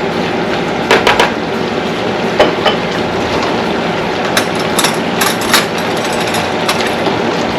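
A utensil knocking and scraping now and then against a cooking pot while the thickened stew is stirred, over a steady rushing hiss.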